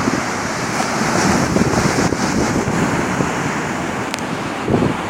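Sea waves breaking and washing in surf, with wind gusting on the microphone.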